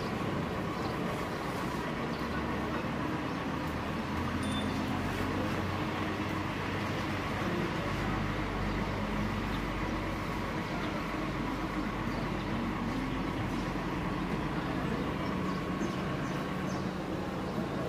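A vehicle engine idling with a steady low rumble that swells in the middle and eases off toward the end, under a constant wash of outdoor traffic noise.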